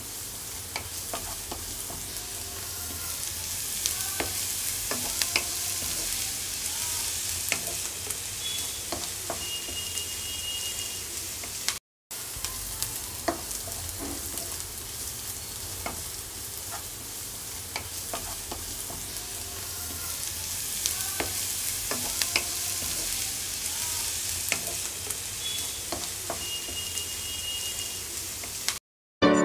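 Chopped garlic and green chillies frying in a nonstick kadai, with a steady sizzle and the scattered scrapes and taps of a wooden spatula stirring them. The sound drops out briefly twice, about twelve seconds in and just before the end.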